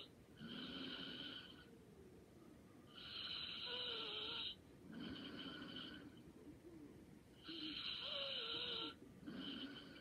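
Light snoring in slow, regular breaths, about three cycles, each a longer, louder wheezy draw with a high whistle followed by a shorter, softer breath.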